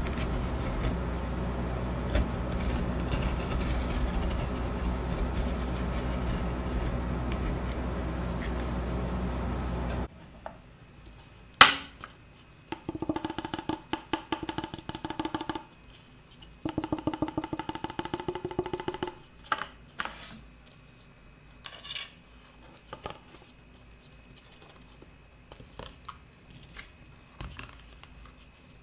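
A steady low hum that cuts off abruptly about ten seconds in. Then a sharp tap, two runs of rapid rhythmic scraping with a ringing pitch, and scattered light taps: metal spatulas scraping and tapping on a frozen steel ice cream roll plate and against a paper cup.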